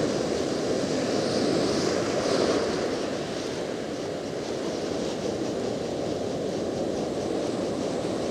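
Ocean surf washing and breaking on the shore, a steady rushing noise, with wind buffeting the microphone.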